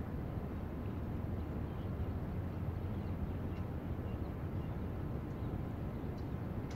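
Steady low outdoor background rumble, with a few faint high chirps scattered through it.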